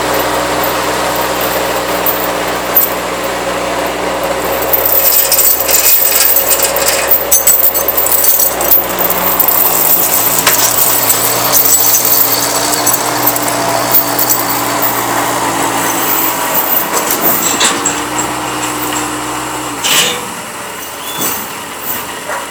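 Heavy-equipment engine running steadily under rattling and clanking metal, which grows busier about five seconds in; the engine shuts off suddenly near the end.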